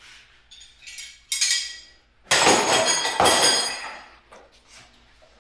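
Metal hand tools clinking and clattering against each other and against metal, with ringing high tones. There is a sharp clink about a second in and two loud clatters around the middle, then a few lighter clinks.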